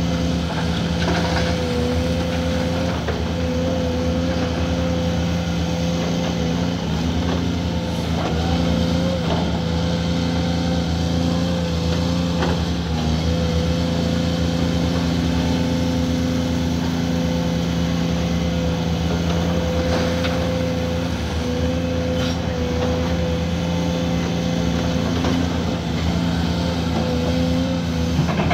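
Cat 340D hydraulic excavator's diesel engine running steadily under load through a loading cycle, with a wavering whine over the engine drone and a few scattered knocks as coal is dumped and dug.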